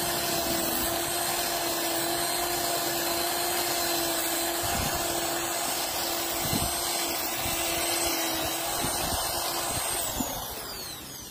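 A handheld power tool running steadily at high speed, then switched off about ten seconds in and spinning down, its pitch falling as it slows.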